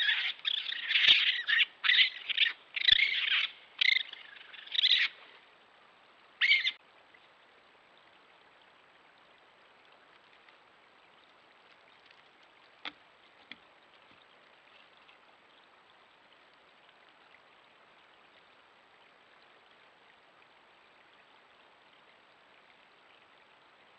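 A rapid series of short, high-pitched animal calls for about five seconds, with one more call at about six and a half seconds. After that there is only faint steady hiss from the trail camera, with two small clicks about thirteen seconds in.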